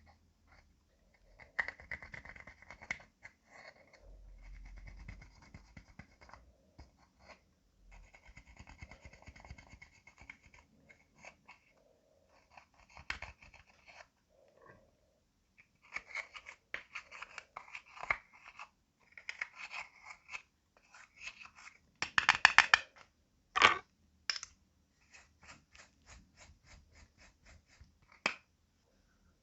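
Slime being handled and mixed by hand: stretches of scraping alternate with sticky clicks and crackling pops. The loudest part is a dense run of crackles about two-thirds of the way in.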